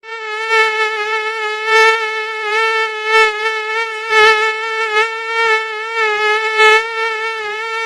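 Mosquito wing whine: a steady, high buzzing tone with many overtones, wavering slightly in pitch. It starts suddenly and swells louder and softer about once a second.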